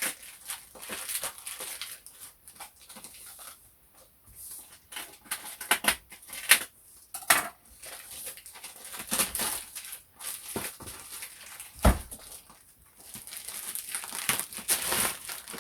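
A shipping parcel being torn open by hand: irregular rustling, crinkling and ripping of packaging, with sharp cracks and one heavy thump a little before the end.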